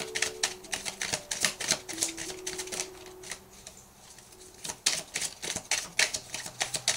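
Tarot cards being shuffled by hand: a fast, irregular run of card clicks and flicks that pauses briefly about halfway through, then picks up again.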